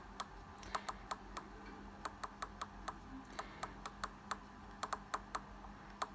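FrSky radio transmitter's navigation controls clicking as its OpenTX menu options are scrolled through: an irregular run of sharp clicks, several a second, over a faint steady low hum.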